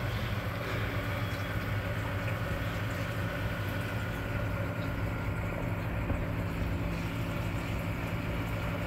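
Steady low hum of reef aquarium equipment, with pumps and wavemakers running and circulating the water.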